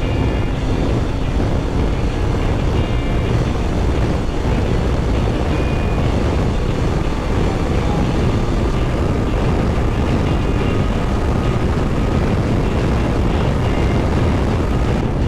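Suzuki V-Strom 800DE's parallel-twin engine running steadily under way, with road noise from riding on dirt tracks.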